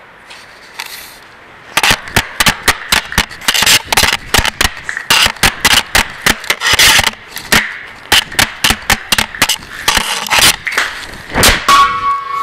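Hockey stick blade repeatedly tapping a roller hockey puck back and forth on a concrete floor while stickhandling, with the puck scraping and rolling between hits. The sharp taps start about two seconds in and come about three or four a second.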